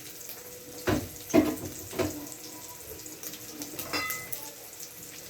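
Tap water running into a sink while items are handled and knocked against it: three knocks in the first two seconds, then a ringing clink about four seconds in.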